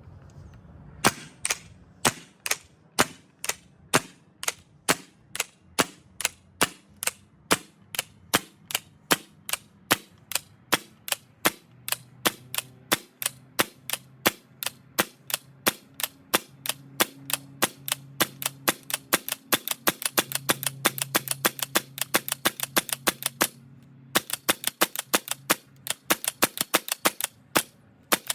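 GHK HK416A5 gas-blowback airsoft rifle firing single shots one after another, about two a second at first and quickening later. Each shot is a sharp crack with the bolt's blowback clack, with one short pause near the end.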